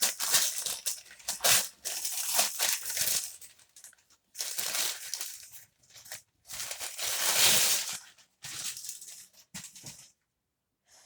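Packaging being torn open and crumpled by hand, in irregular bursts of rustling and tearing that stop about ten seconds in.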